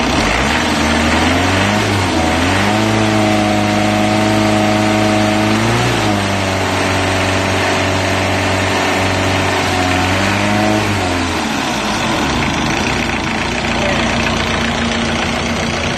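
Replacement engine for an old LUV pickup running: it idles, is revved up about two seconds in and held at a steady higher speed with another brief rise near six seconds, then drops back to idle about eleven seconds in.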